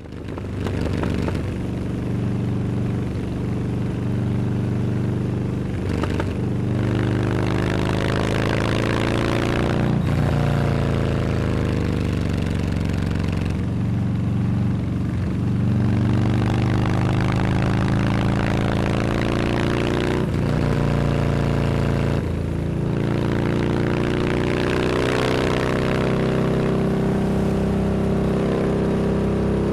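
Harley-Davidson Dyna Super Glide FXD's air-cooled V-twin engine running, its pitch falling and rising several times as the revs change, with short breaks in the note a handful of times.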